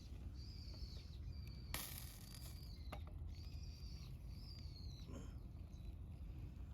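A bird giving a series of high, thin calls, each under a second long and dipping at its end, about once a second, over a steady low rumble. There are a few sharp cracks, the loudest a short crackling burst just under two seconds in.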